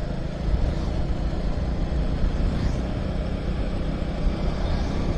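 Motorcycle being ridden at steady road speed: a constant engine drone mixed with wind rush over the microphone.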